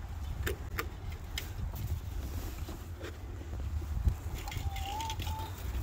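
Wind buffeting the microphone in a low rumble, with scattered light footsteps in snow and, about four and a half seconds in, two faint short hen calls.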